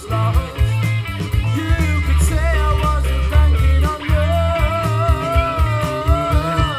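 Rock music with electric guitar and a heavy, pulsing bass line, played back through Bang & Olufsen Beolab Penta active speakers as a sound test; a held, wavering melody line comes in about four seconds in.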